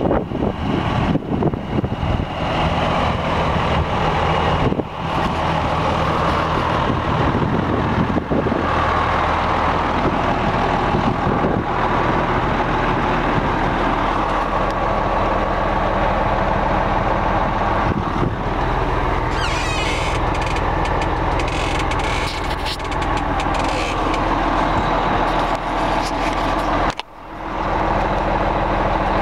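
1998 Freightliner Century truck tractor's diesel engine running at a low, steady idle, heard from behind the tractor and then from inside the cab. About twenty seconds in, a high hiss joins for a couple of seconds.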